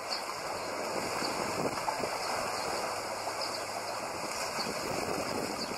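Choppy lake water splashing and lapping, with wind on the microphone.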